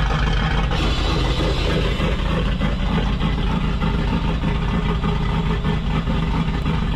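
A vehicle engine running steadily at low revs, mostly a low rumble, with no change in pitch.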